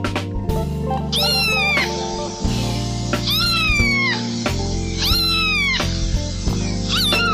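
Domestic cat meowing, long meows that fall in pitch, one about every two seconds, with a fourth starting near the end, over background music.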